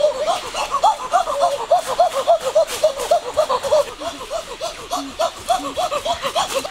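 Laughter: a long string of short, high-pitched syllables, about five a second.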